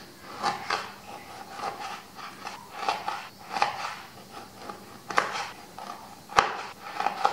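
Chef's knife slicing through limes and knocking on a wooden cutting board, in irregular strokes with a sharp knock about six seconds in as the blade hits the board.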